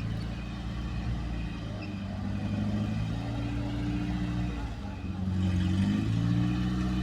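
A 4x4 off-road vehicle's engine running steadily. About four and a half seconds in, its pitch drops, then it revs back up and gets louder near the end.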